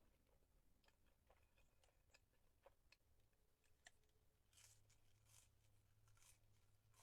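Near silence with faint eating sounds: scattered soft mouth clicks and, about two-thirds of the way in, a few brief soft crunching or rustling swishes.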